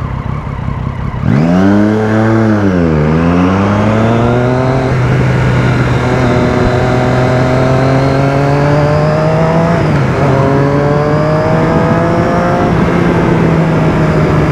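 Motorcycle engine pulling away from a stop: after a quiet idle it revs up about a second in, then climbs in pitch through the gears, with short dips at two upshifts, and settles to a steady cruising note with wind rush.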